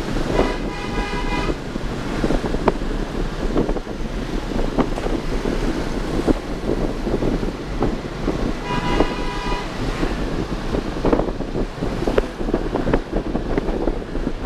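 Motorbike running through city traffic with wind buffeting the microphone. A vehicle horn sounds twice, each honk about a second long: once near the start and again about nine seconds in.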